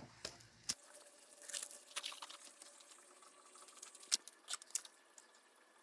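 Faint, scattered clicks and light scraping of a new spin-on oil filter being screwed on by hand.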